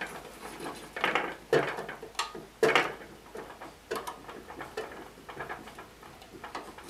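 Irregular knocks and rattles from the lower wheel of a small 9-inch Task Force band saw being tugged and wiggled on its shaft. It stays stuck because the drive belt is still on it.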